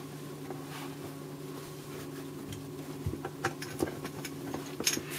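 Steady low electrical hum from the test power supply's 25-volt transformer, just plugged in. A few light clicks and a handling rustle come in over the second half.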